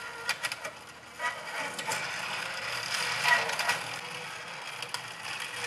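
Hand-cranked Selena 8 mm film editor-viewer winding film through: the crank, reel and film transport give an irregular clicking and rattling, louder about three seconds in.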